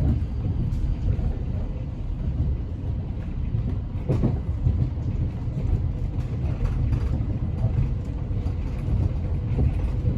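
Class 707 electric train running between stations, heard inside the carriage: a steady low rumble with a rushing noise that sounds like wind blowing through the doors, and a sharp clatter about four seconds in.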